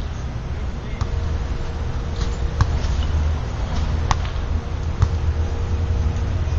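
A volleyball being struck by players' hands and arms during a beach volleyball rally: four sharp slaps, about a second in, near the middle, around four seconds in (the loudest, as the ball is hit at the net) and about a second later. A steady low rumble runs underneath.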